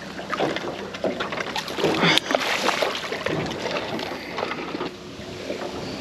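Water splashing and sloshing around a small boat, with irregular knocks and bumps. The loudest burst comes about two seconds in.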